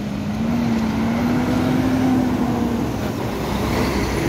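Motor vehicle engine running steadily, its pitch drifting gently up and down, over a low rumble.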